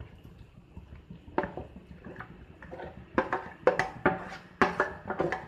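Grated bottle gourd being scraped out of a bowl into hot ghee in a non-stick kadhai. A spoon and the bowl's rim knock and click against the pan in a quick irregular series, most of it in the second half.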